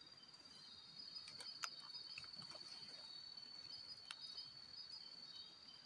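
Night insects trilling: a faint, steady, high-pitched drone, with a few soft clicks.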